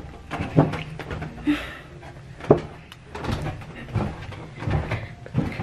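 Footsteps going down a flight of stairs: a series of dull thumps, roughly one a second, mixed with rustling from the camera being handled.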